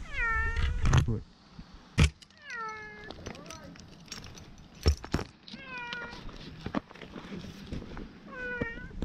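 A kitten meowing four times, a couple of seconds apart, each call starting high and falling in pitch. Sharp clicks and knocks fall between the calls.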